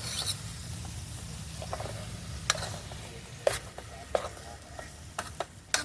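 Bok choy frying in bacon grease with a soft sizzle, while a utensil stirs it and clicks against the pan several times, in a quick cluster near the end. A low steady hum runs underneath.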